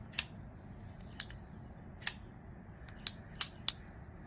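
Six sharp metallic clicks at irregular intervals from the freshly reassembled Reate PL-X flipper folding knife as it is handled and its blade worked.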